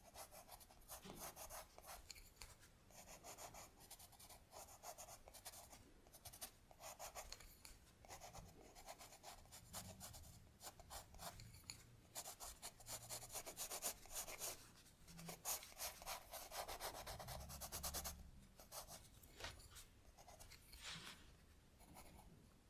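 Faint stylus strokes on a tablet screen: quick, repeated scratchy rubbing in runs with short pauses between them, like pencil shading.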